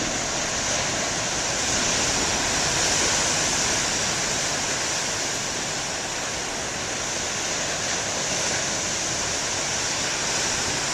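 Ocean surf: waves breaking and washing up the beach in a steady rush, swelling a little a couple of seconds in.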